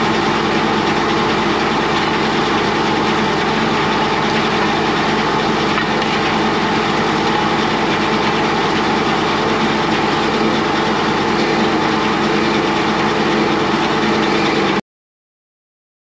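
Shop-built circular sawmill running with its large blade spinning free between cuts, driven hydraulically off a tractor engine: a loud, steady mix of engine and whirring blade. It cuts off suddenly near the end.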